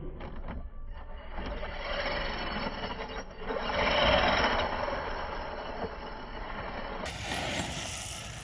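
Electric RC truck (Arrma Mojave 6S) driving on dirt: brushless motor whine and tyre noise that grow louder to a peak about four seconds in, then fade again.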